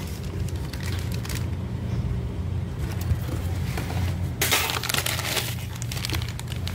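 Paper packaging rustling and crinkling as treat packets and honeycomb kraft-paper wrap are handled, loudest about four and a half seconds in, with a few sharp crackles near the end.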